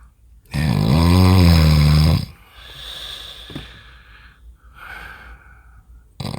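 A man snoring in deep sleep: one long, loud, pitched snore starting about half a second in and lasting nearly two seconds, followed by quieter hissing breaths, then a short sharp snort near the end.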